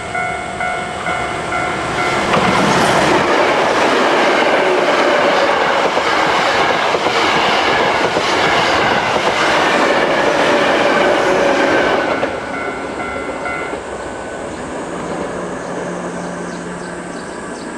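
Japanese railway level-crossing warning bell clanging in quick repeated dings. About two seconds in, a train passes, loud with rhythmic wheel clacks, drowning the bell for about ten seconds. The bell is heard again briefly as the train clears, then stops.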